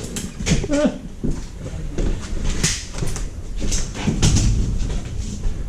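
Scattered knocks and clicks, a few strong ones about half a second to a second apart, over a low background rumble in a small room.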